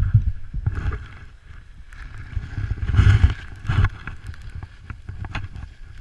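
Low, uneven rumble and buffeting on a pole-mounted GoPro's microphone while skiing downhill through soft snow, loudest about three seconds in, with faint ticks and knocks from handling the pole.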